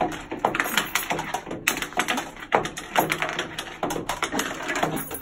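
Wooden pencils clattering on a wooden tabletop as several people grab and flip them, a rapid, irregular patter of light clicks and taps.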